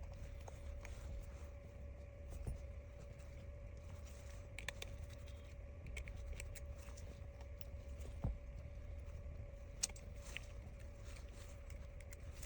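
A few faint, sharp clicks and taps of small repair tools working on the phone's connectors, over a steady low hum and a faint steady whine.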